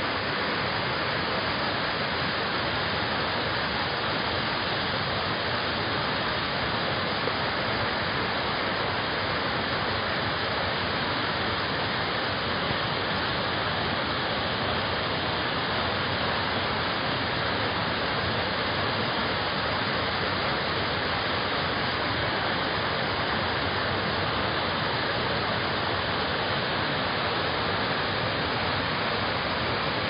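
Waterfall pouring over rocks into a rocky stream: a steady, unbroken rush of falling and tumbling water.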